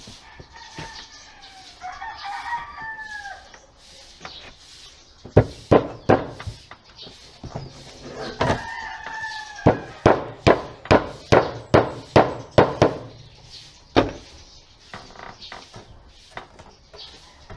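Hammer blows driving nails into a wooden drawer: a few strikes, then a quick run of about a dozen, then one last blow. A rooster crows twice in the background.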